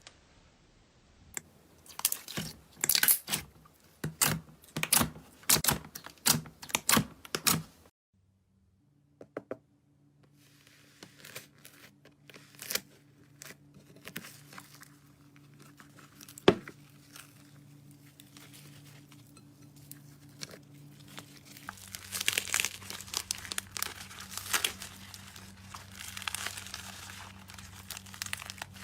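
Slime being squeezed and stretched by hand, crackling and popping. About eight seconds in the sound cuts off abruptly. It gives way to quieter handling over a steady low hum, with a dense crinkly crackling from about two-thirds of the way in.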